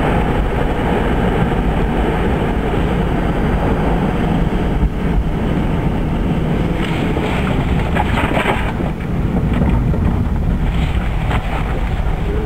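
Steady road and wind noise in the cabin of a moving Toyota Prius driven on battery power alone, with no engine running: a low tyre rumble and rushing air.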